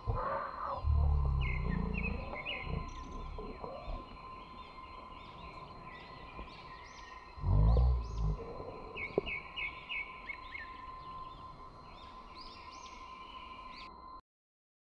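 Birds chirping in the trees in short quick runs of notes, over a steady thin high tone. Two dull low thumps come through, about a second in and again near eight seconds, the second the loudest. The sound cuts off suddenly near the end.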